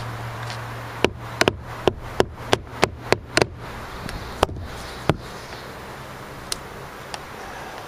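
One-handed trigger bar clamp being ratcheted tight on a glued wooden cabinet: a quick run of sharp clicks, about three a second, then a few scattered clicks.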